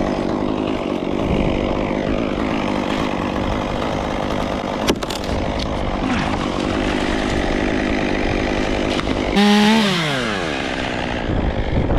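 Chainsaw running steadily as it cuts into a hollow tulip poplar. A sharp click comes about five seconds in. Near the end the saw gives a loud burst whose pitch then falls away over about a second.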